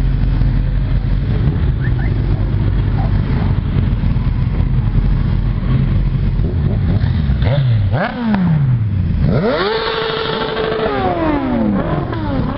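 Motorcycles, sportbikes and a cruiser, riding past at low speed, their engines running together in a dense mix. In the second half, individual bikes rev and pass close by, their engine notes rising and falling in pitch.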